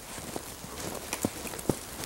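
Footsteps crunching through fresh snow, uneven, with a few soft thumps.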